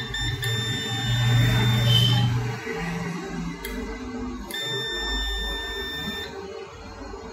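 Electronic beeping from a digital multimeter: a brief beep right at the start, then two long steady beeps of under two seconds each, about four seconds apart, as the probes are held on the laptop motherboard's power-button circuit.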